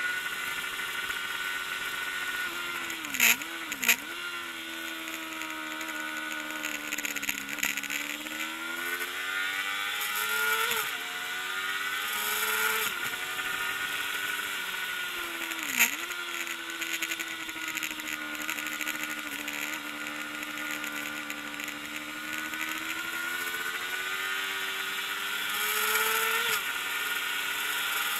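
Kawasaki ZXR400 inline-four racing engine revving high, its pitch climbing and falling again and again with throttle and gear changes. Sharp cracks with sudden pitch drops come twice about three to four seconds in and once near sixteen seconds.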